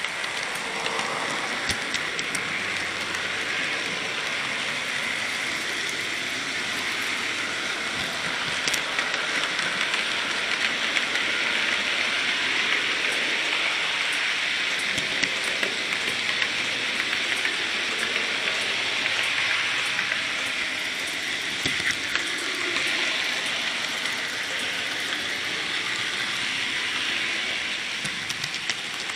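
N gauge model train running along the track: a steady rattling hiss from its small motor and its wheels on the rails, with scattered sharp clicks.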